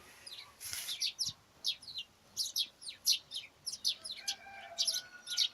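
Small birds chirping: quick, high chirps repeated a few times a second throughout, with a faint held tone underneath near the end.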